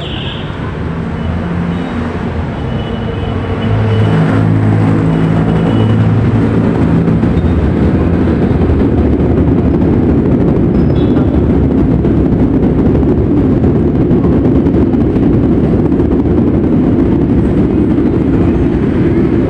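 Street traffic running close by: a steady, loud drone of vehicle engines and road noise, growing louder about four seconds in as a heavy engine passes.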